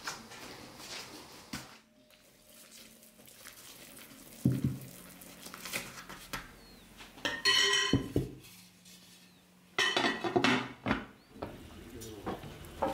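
Pots, dishes and metal utensils clinking and clattering in a few short bursts, with a knock about four seconds in and louder ringing clinks later on.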